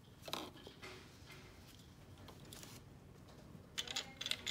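Faint clicks and rubbing of small plastic parts being handled and fitted on a Bandai Super Minipla Yellow Lion model-kit figure, with a quick run of clicks near the end.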